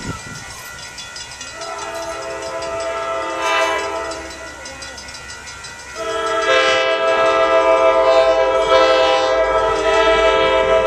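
Locomotive air horn sounding a multi-note chord as a train approaches, held on and swelling much louder about six seconds in.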